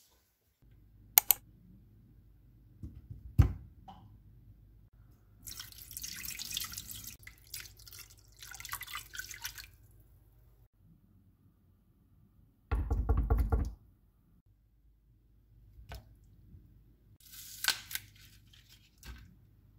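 Kitchen sounds around a pot on the cooktop: water splashing and pouring into a pot holding a slab of pork, a few sharp clicks and knocks, and a loud low rumble lasting about a second past the middle. Near the end a green onion is snapped by hand into the pot.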